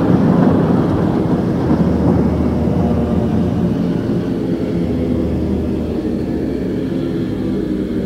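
Low, steady rumbling drone from a Halloween sound-effects cassette, loudest in the first second or two and then settling.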